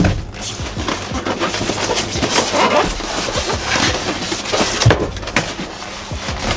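Polystyrene packing pieces and plastic wrapping rustling and creaking as a sewing machine is unpacked from its box, with a few sharp knocks.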